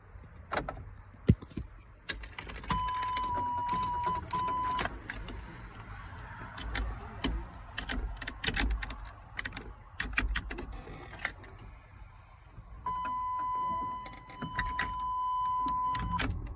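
Steady electronic warning buzzer tone, likely the truck's dashboard key/warning buzzer, sounds twice: about two seconds, then again for about three and a half seconds near the end. Scattered clicks and key rattles come from the ignition being worked.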